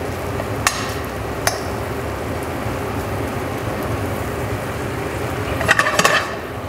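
Date and fig compote simmering steadily in a stainless steel sauté pan over a gas flame. A metal spoon clinks against the pan twice in the first two seconds, then scrapes and clinks as the compote is stirred near the end.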